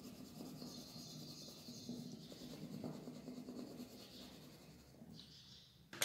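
Light green colour pencil scratching softly on drawing paper as an area is shaded in, in several stretches, the longest in the first couple of seconds.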